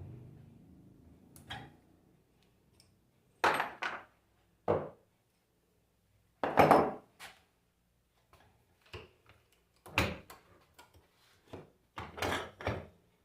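Tools and alternator parts being handled on a workbench: a series of separate knocks and clatters, in small clusters with short pauses between.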